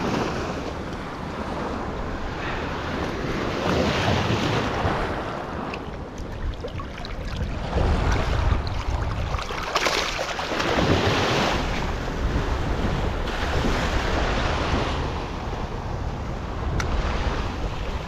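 Small ocean surf washing up on a sandy beach, swelling and fading every few seconds, with wind rumbling on the microphone. About ten seconds in, a hand splashes in the shallow water.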